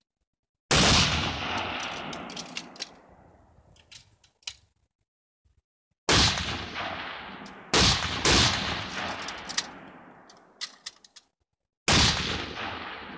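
Full-bore rifle shots on a 300 m range: five sharp reports, two of them barely a second apart near the middle, each followed by a long echo rolling away over a few seconds. Light clicks sound between the shots.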